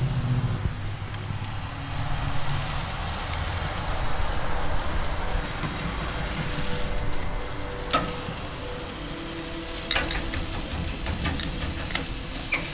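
Ribeye steak sizzling as it sears on a very hot grill, a steady hiss, with a few sharp clicks about eight and ten seconds in and more near the end.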